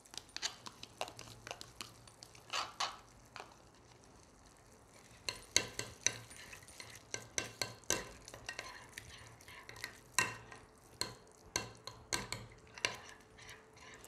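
A metal spoon scraping and clinking against a glass dish while stirring yogurt into thick microwaved condensed milk, in irregular clicks and scrapes.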